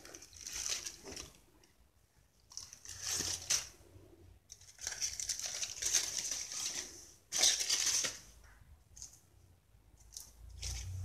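Aluminium foil crinkling in several short bursts as it is peeled off a roast beef and crumpled away.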